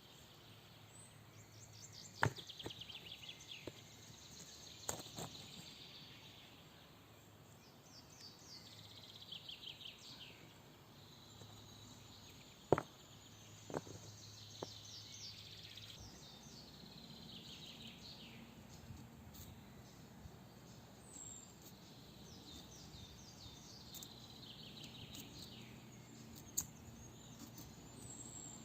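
A songbird singing in woodland, repeating a short phrase of quick notes that falls in pitch every five or six seconds. A few sharp cracks or snaps stand out louder, about 2, 5, 13, 14 and 27 seconds in.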